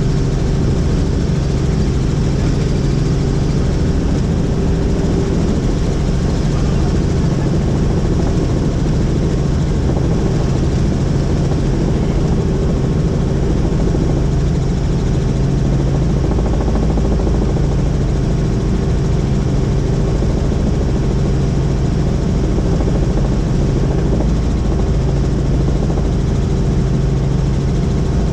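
Helicopter in flight: steady rotor and engine noise with a constant low hum, unchanging throughout.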